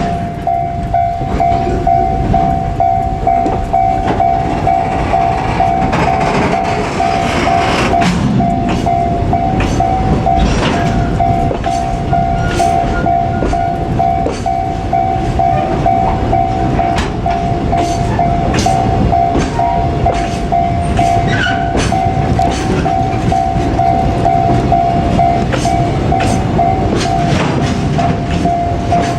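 Japanese level-crossing warning bell ringing steadily with two pulsing tones while a JR Freight train rolls past, its wheels rumbling and clattering over the rail joints.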